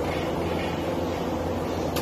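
CNC glass cutting machine running: a steady low hum with hiss, and a sharp click near the end.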